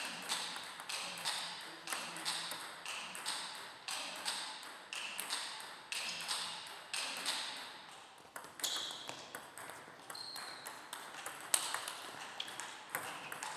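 Table tennis ball clicking back and forth between the paddles and the table in fast rallies, about two hits a second, with a short lull about two-thirds of the way through between points.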